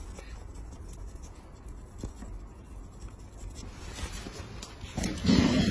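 Metal blade scraping dried callus off a heel: a faint, dry scratching with scattered small clicks. A louder sound comes in near the end.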